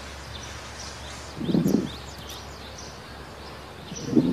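Two muffled thuds from a Prestige electric sandwich grill as the sandwiches are topped and its lid is shut, the second near the end. Birds chirp faintly throughout.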